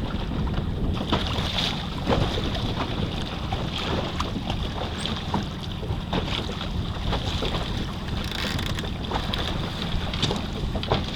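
Wind rumbling on the microphone in a small boat on open water, with water sounds around the hull and scattered light knocks.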